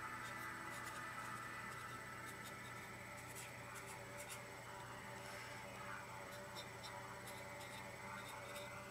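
Marker pen writing on masking tape stuck to a glass mason jar: faint, short scratching strokes.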